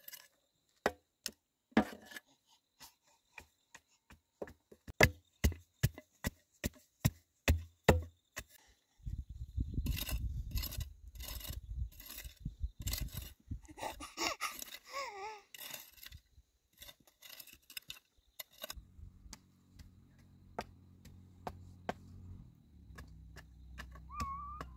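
A run of sharp, irregular knocks and taps, about one or two a second, followed by several seconds of dense rustling and scraping. Near the end a low steady hum sets in.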